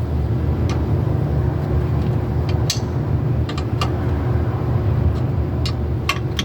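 A steady low rumble with a faint steady hum over it, and a few short, sharp light clicks scattered through.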